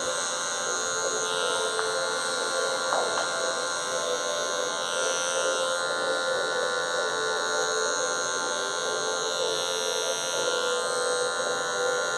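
Cordless electric hair clipper buzzing steadily as it cuts the short hair of a fade at the back of the neck, worked in short scooping C-shaped strokes to blend the line.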